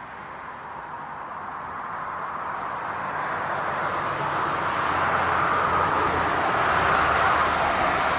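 Jet airliner's engine noise, a rushing roar growing steadily louder as the aircraft draws near.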